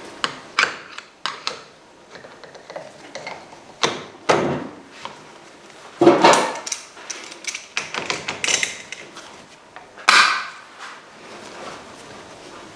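Irregular knocks, clicks and clatters of hand tools and metal parts being handled during a motorcycle rear-end strip-down, the loudest about halfway through and again about ten seconds in.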